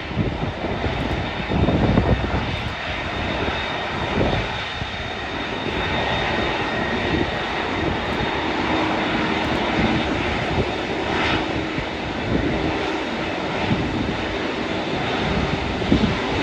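Airliner's jet engines running, a steady, loud rush of noise, with a faint hum joining about halfway through.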